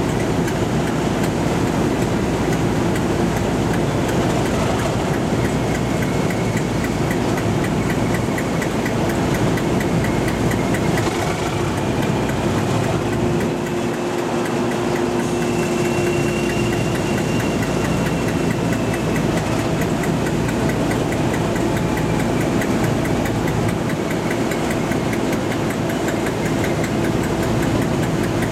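Diesel locomotive engine idling steadily while the locomotive stands still, with a constant low hum.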